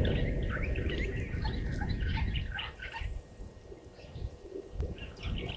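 Many short, high chirping calls in quick succession, over a low rumbling noise that eases off about three seconds in.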